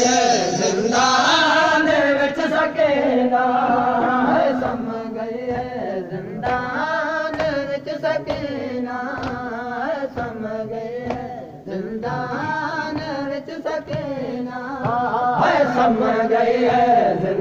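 A group of men chanting a noha, a Shia mourning lament, in unison, with sharp slaps landing in a steady beat of about two a second through the middle, typical of the matam chest-beating that accompanies a noha.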